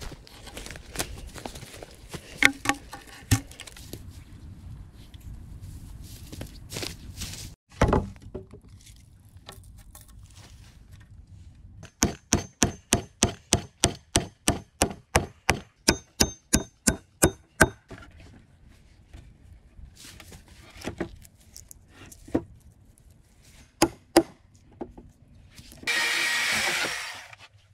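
Woodworking on logs: irregular knocks and clatter of logs being handled, then a hatchet chopping a log in a quick, even run of strikes, about three a second for some six seconds, each with a faint ring. Scattered knocks follow, and a short rasping noise lasting about a second near the end.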